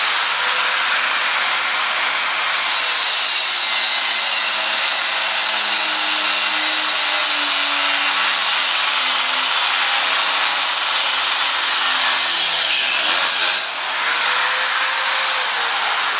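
Angle grinder with a cutoff disc cutting through a steel bicycle U-lock, giving a steady grinding hiss over a high motor whine. The whine drops in pitch as the disc bites into the metal. About thirteen seconds in it rises briefly as the disc comes free, then drops again as the cut resumes.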